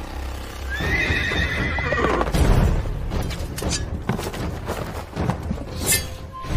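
A horse whinnies once about a second in, a call lasting about a second and a half that rises and then falls, over a deep rumble and low thuds of trailer sound design.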